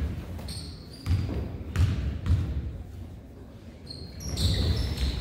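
A basketball bouncing on a gym floor a few times during a game, then short high squeaks of sneakers on the court near the end.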